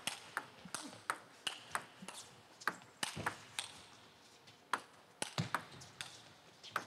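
Table tennis ball clicking off the rackets and the table in play: a string of sharp, short ticks a fraction of a second apart, with a brief lull about halfway through.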